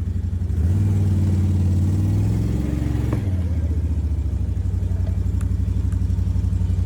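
Four-wheeler (ATV) engine running with an even low pulse. It revs up about a second in, holds for a couple of seconds, then drops back to idle with a click as it is eased into position.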